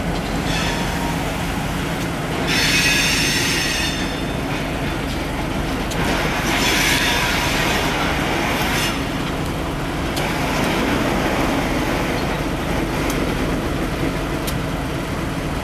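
A pair of EMD GP38-2 diesel locomotives, each with a non-turbocharged 16-cylinder 645 engine, running steadily as they creep along the track at low speed. Steel wheels squeal high-pitched against the rail twice: about two and a half seconds in for a second and a half, then for about three seconds from six seconds in.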